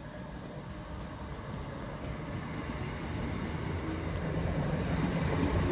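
Class 319 electric multiple unit pulling away from the station, its low rumble growing steadily louder as it draws closer.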